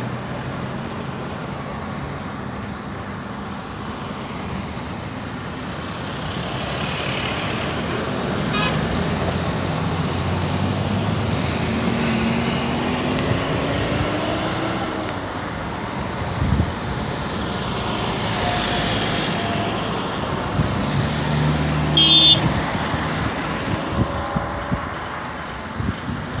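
Motor vehicles running, with a steady engine hum. One engine revs up and drops back about twelve seconds in, and there is a short toot about twenty-two seconds in.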